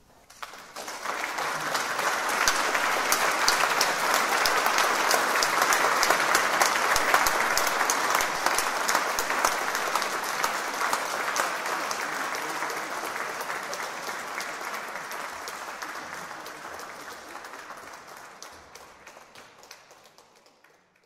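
Audience applauding. The clapping breaks out suddenly, swells within about two seconds and holds, then slowly thins out and dies away near the end.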